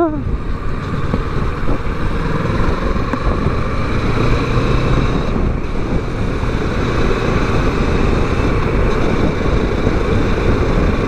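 Kawasaki Versys 650's parallel-twin engine running steadily while riding at street speed, mixed with wind and road noise.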